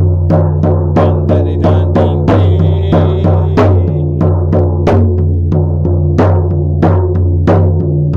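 Shamanic drumming: a steady, even drumbeat of about two to three strikes a second, each ringing briefly, over a low steady drone.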